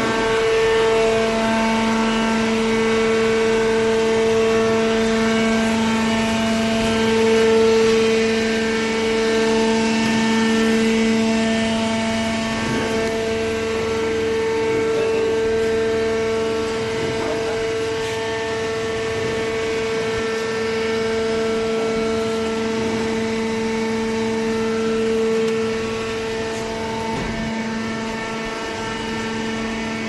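Hydraulic baler's electric motor and hydraulic pump running: a steady, even hum with a whine over it, easing slightly in loudness near the end.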